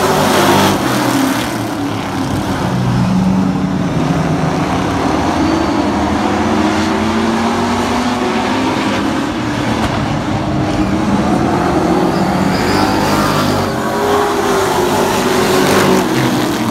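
A field of late model stock cars racing on a short oval, their V8 engines running hard together, the pitch of the pack rising and falling as the cars go through the turns and past.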